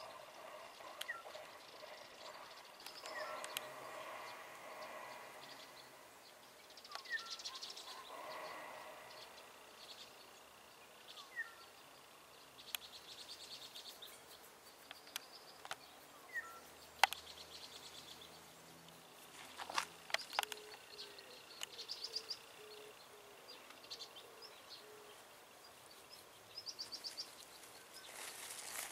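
Quiet outdoor ambience with scattered bird chirps and short calls, and a few sharp clicks now and then, the loudest about halfway through.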